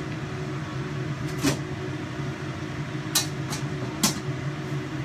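A steady mechanical hum, with four sharp clicks and knocks as a lower kitchen cabinet is opened and things inside it are handled.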